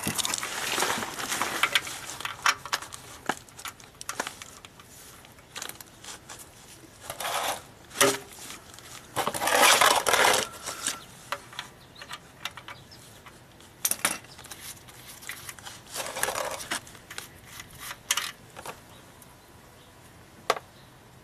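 Metal clinks, taps and scrapes of a socket wrench being worked on a car's oil drain plug, with a few short bursts of rattling noise.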